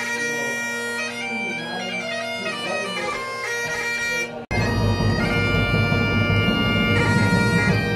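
Great Highland bagpipes playing a tune over their steady drones. About halfway through the sound breaks off for an instant and comes back louder, with a low rumble underneath.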